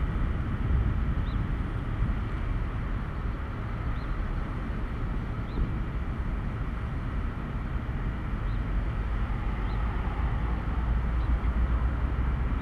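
Steady outdoor rumble of nearby road traffic, with faint short high chirps every second or two.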